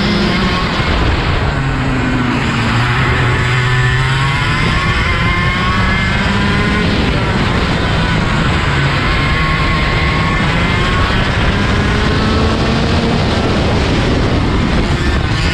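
IAME KA100 100cc two-stroke kart engine heard onboard at racing speed, its pitch rising and falling several times as the kart brakes into and accelerates out of corners, over a steady rush of wind and road noise.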